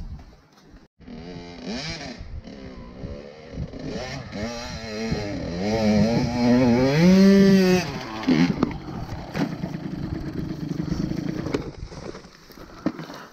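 Dirt bike engine revving up and down over rough ground, climbing to its loudest about six to eight seconds in, then dropping sharply to a lower, steadier running speed.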